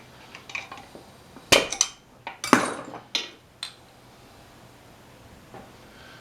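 Sharp metal knocks and clinks of hand tools on the 8 hp Briggs & Stratton flathead engine as the piston is driven up out of its cylinder: a few light clicks, then several hard strikes starting about a second and a half in, and two more taps a little later.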